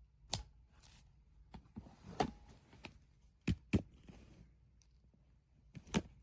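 Five sharp clicks and knocks, including a quick pair about three and a half seconds in, over a faint low hum.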